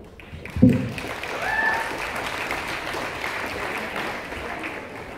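Audience applauding, building up about a second in and tapering off near the end, with a short voice at the start.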